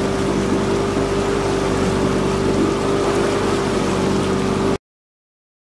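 Boat engine running at a steady speed while under way, a constant hum over the rush of water along the hull. It cuts off abruptly near the end.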